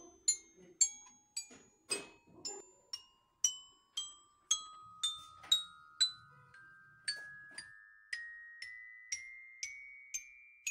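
Background music of bell-like struck mallet notes, about two a second, over a held tone that climbs step by step in pitch.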